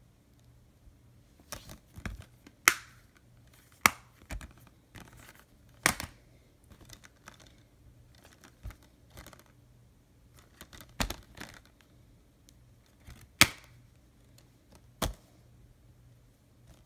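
Plastic Blu-ray cases being handled: a string of sharp, irregular clicks and snaps as the cases are opened and shut and the discs are handled, with softer rustling between.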